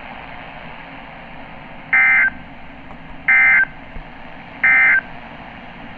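NOAA Weather Radio end-of-message signal: three short, equal bursts of buzzing SAME digital data tones, a little over a second apart, over a steady radio hiss.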